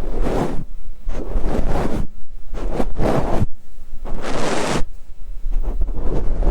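Fluffy ear-cleaning brush sweeping across an ASMR microphone: a run of short, loud swishing strokes, one or two a second.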